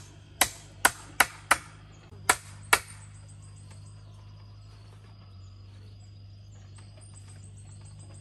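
Hammer striking the wooden pigeon house, about seven sharp blows in the first three seconds, then the hammering stops.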